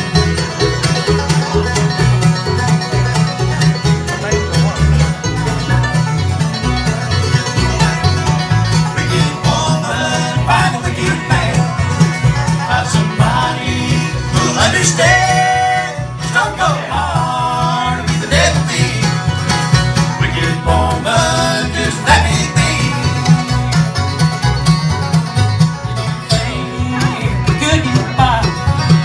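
Bluegrass band playing live: banjo, mandolin, upright bass and two acoustic guitars over a steady beat, with singing from about ten seconds in.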